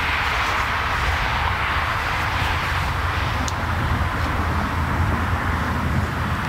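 Piston engine of a Yo-Yo ultralight helicopter running steadily at low speed, with no rise or fall in pitch.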